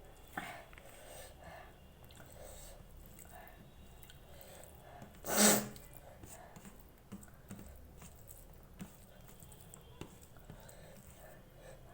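Close-up mouth sounds of a person eating rice and vegetable curry: faint chewing and small wet clicks. About five and a half seconds in comes one louder, breathy half-second burst.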